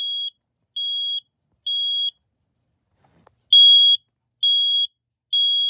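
BRK 9120B (First Alert) smoke alarm sounding on test: a high-pitched steady beep in the fast temporal-3 evacuation pattern. Three half-second beeps, a pause of about a second and a half, then three more, the second set louder.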